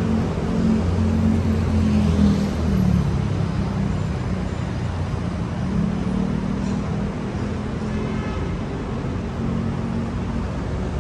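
City street traffic: motor vehicle engines running with steady road noise. An engine hum is loudest in the first three seconds, then eases to a steadier traffic wash.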